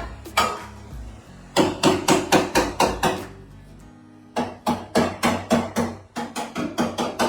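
A hammer striking car body sheet metal in rapid, even blows, about four a second, in two runs with a pause between them, as the damaged panel is worked. Background music plays throughout.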